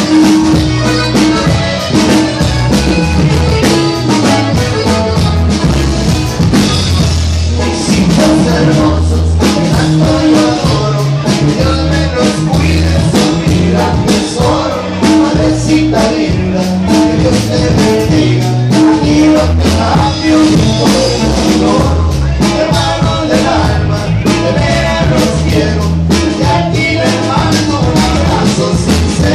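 Live norteño band playing, with electric bass and drums keeping a steady beat under the other instruments.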